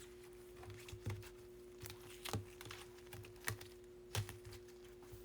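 Faint scattered clicks and taps, roughly one a second, over a steady low hum.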